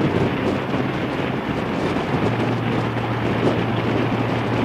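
Wind buffeting the microphone on a Harley-Davidson V-twin motorcycle cruising at highway speed, with the steady low hum of the engine underneath. The engine note steps slightly higher about two seconds in.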